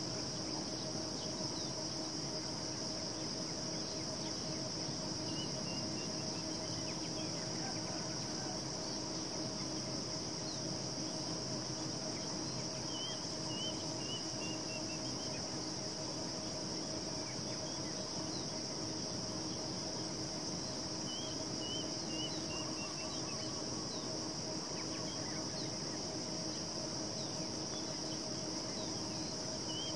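Insects buzzing steadily at a high pitch, over a faint steady low hum. A bird's short run of falling chirps comes back about every eight seconds.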